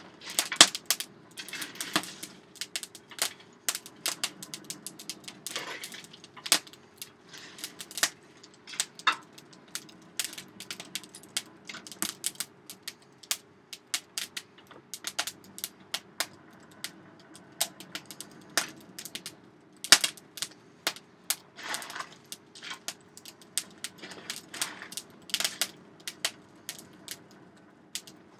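Damp wood burning in a blacksmith's forge fire, crackling with many sharp, irregular pops over a steady low hum.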